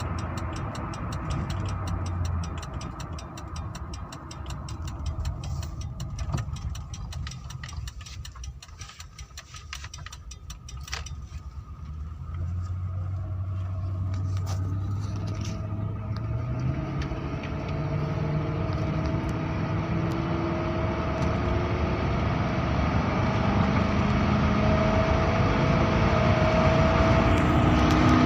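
Car engine running with a rapid, regular ticking in the first half. From about halfway, its pitch and loudness climb steadily as it revs up.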